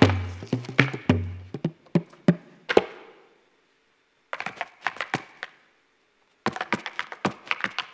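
Irish hard-shoe step dancing: rapid flurries of heel and toe taps on a stage floor. For about the first second they sound over a deep accompanying note. After that they come in separate bursts with pauses of silence between them.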